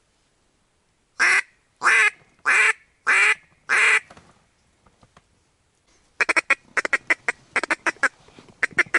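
Loud mallard-style duck quacking. About a second in come five drawn-out quacks in a row, a little more than one a second. After a short pause, at about six seconds, a fast stuttering chatter of short quacks begins.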